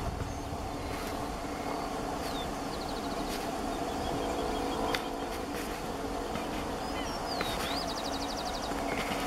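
Boeing 737-700 jet engines on final approach, a steady low drone, with small birds chirping and giving short high trills twice.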